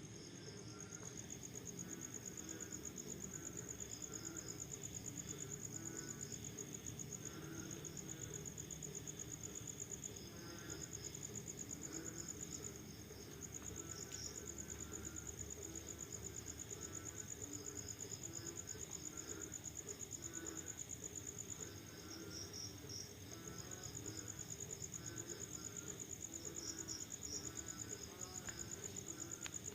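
Night chorus after rain: crickets trilling in a high, steady pulsing note that breaks off briefly a few times, over frogs calling in many short repeated notes.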